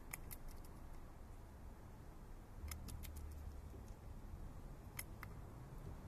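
Common blackbird's beak clicking against a ceramic bowl as it picks up mealworms: a few sharp clicks in small clusters, over a low background rumble.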